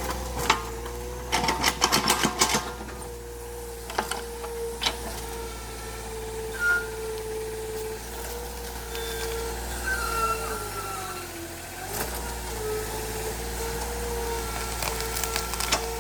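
Excavator running steadily, its engine note sagging briefly under load a little past the middle, with a burst of clattering knocks near the start and single knocks later as the machine works the ground.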